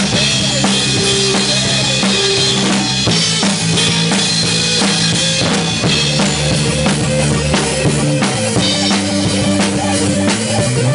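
A rock band playing live: a drum kit keeps a steady beat with cymbal crashes over sustained electric guitar chords.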